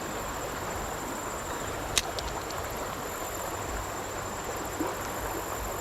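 Creek water running steadily, with one sharp click about two seconds in and a faint, high, steady whine above the water.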